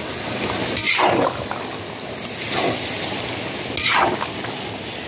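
Chopped tomatoes and vegetables being stirred in hot oil in a large pot: three wet, sweeping strokes over a steady sizzle.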